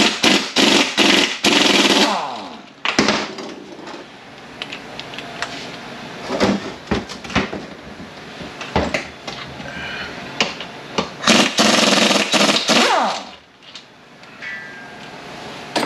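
Pneumatic impact wrench hammering out 12 mm Allen-head bolts on an MT82 manual transmission case, in two long bursts: one at the start and another about eleven seconds in, its pitch shifting as it runs. Scattered metal clicks and clanks come between the bursts.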